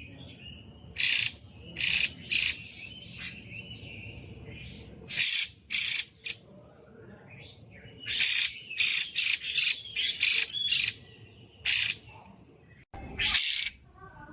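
Female Chinese hwamei (melodious laughingthrush) calling loudly: short, harsh notes repeated at irregular gaps, breaking into quick runs about two-thirds of the way through, with the loudest notes near the end.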